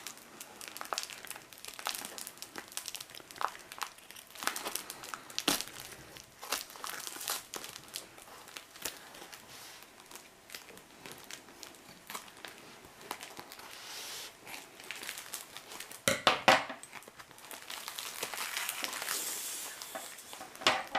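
Foam packing wrap crinkling and tearing as it is cut and pulled apart with scissors: irregular crackles, with a louder burst of them about 16 seconds in.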